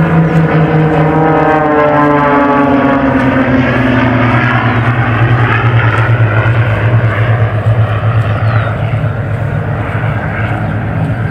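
Propeller airplane flying past, its engine and propeller drone falling in pitch over the first few seconds as it passes, then carrying on as a steady lower drone.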